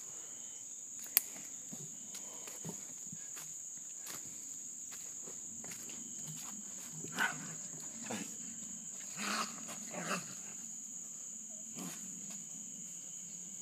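Steady high-pitched chirring of a cricket chorus at night, with one sharp click about a second in and a few short, harsh noises a little past the middle.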